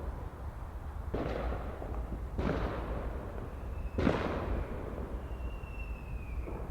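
Fireworks going off: three booming bursts, each trailing off in a crackle for about a second, the loudest about four seconds in, over a steady low rumble. A faint thin whistle slides slightly downward near the end.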